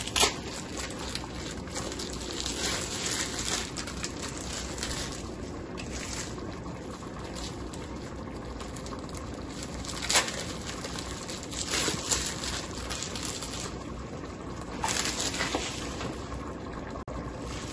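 A pot of cream sauce of heavy cream and coconut milk simmering and bubbling on an electric stove, a steady soft hiss. A few sharp clicks and knocks come through it: right at the start, about ten seconds in, and twice more a few seconds later.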